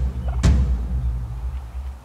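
A wild turkey tom gobbles loudly about half a second in, the call fading over the next second, over a steady low rumble.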